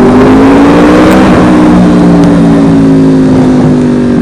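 2013 Yamaha R1 crossplane inline-four through a Toce full exhaust, loud as the revs climb over the first second or so, then holding high and easing slightly toward the end.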